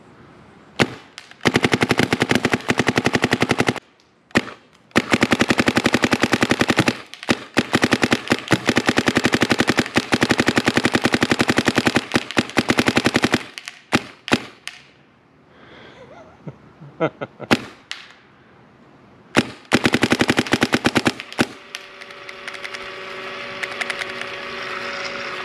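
ICD Promaster paintball marker fed by a Dye Rotor loader, firing long, rapid strings of shots at about 270 fps. Short pauses and a few single shots fall between the strings.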